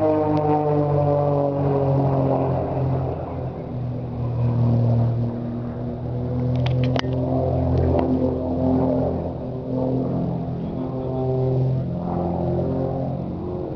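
Aerobatic display plane's engine droning overhead, its pitch dropping steeply at the start as it passes, then holding and shifting as it manoeuvres. A few sharp clicks come a little past the middle.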